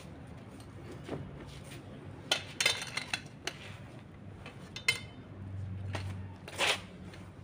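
Scattered light metallic clinks and clicks: a cluster about two to three seconds in, then single ones near five and six and a half seconds, as a metal snake hook and a cloth snake bag are handled on a concrete floor. A low hum comes in briefly in the second half.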